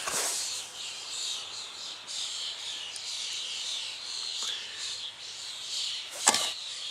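Birds chirping and insects trilling in the background, with a soft click at the start and a sharper click about six seconds in.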